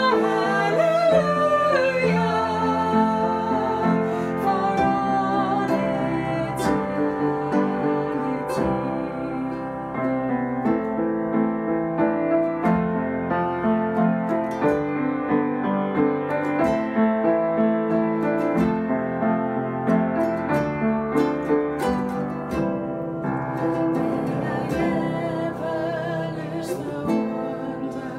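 A man and a woman singing a worship song to upright piano and strummed ukulele. The voices drop out for a long piano-and-ukulele passage in the middle and return near the end.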